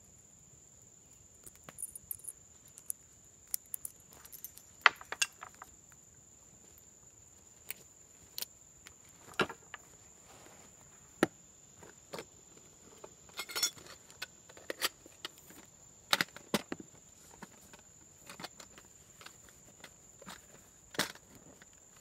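Camp gear being handled: a canvas bag's buckle unfastened, the bag rummaged through and a metal canteen in a cloth cover pulled out, giving scattered sharp clicks, knocks and canvas rustles. A steady high insect drone runs underneath.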